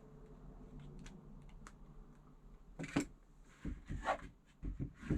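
Handling noises: a few faint clicks, then from about three seconds in a cluster of knocks and rustles, as of a small plastic object being picked up and moved.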